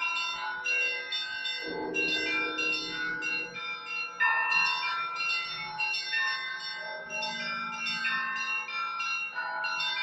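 Russian Orthodox church bells pealing from a monastery bell tower: several bells struck in quick, overlapping rhythmic patterns, with a deeper bell ringing out about two seconds in. This is the festive ringing that calls the faithful to the all-night vigil.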